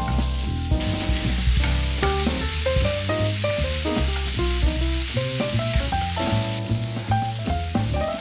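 Chopped vegetables in hot oil sizzling in a non-stick frying pan as they are stir-fried with a wooden spatula. The sizzle is loudest from about a second in until near the end. Soft background music with a melody and a low beat plays underneath.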